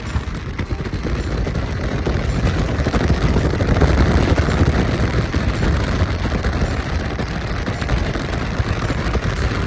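Rushing road and wind noise of a moving car, steady and low, swelling a little in the middle.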